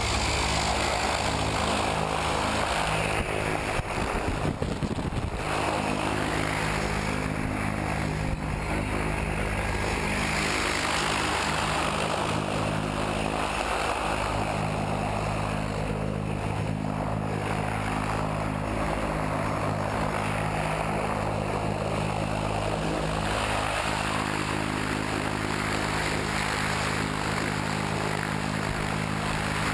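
Single-engine propeller plane's engine running steadily, its propeller turning while the plane stands on the ground.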